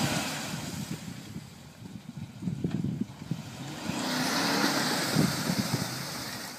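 Nissan Patrol SUV engine revving in two surges while driving off-road, with wind buffeting the microphone.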